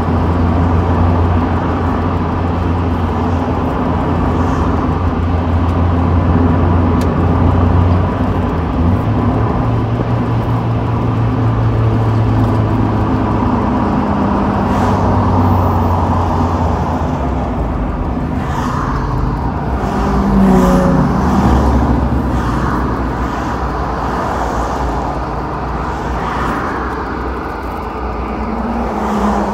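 Mazda Miata driving with the top down: its four-cylinder engine runs at a steady note under wind and road noise in the open cockpit. The engine pitch steps up about eight seconds in and drops back about halfway through.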